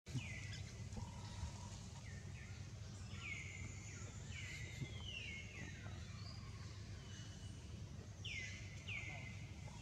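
Short high-pitched animal calls, heard about six times, each sliding down in pitch and then holding level, over a steady low rumble of outdoor background noise.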